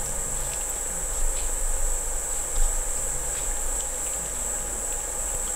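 A steady high-pitched chirring drone with a few faint, soft clicks, the sound of a cat chewing a freeze-dried green-lipped mussel treat.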